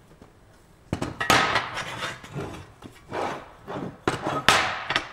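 Heavy steel plate being shifted and handled on a metal workbench: a series of clunks and scrapes, some with a brief metallic ring, beginning about a second in.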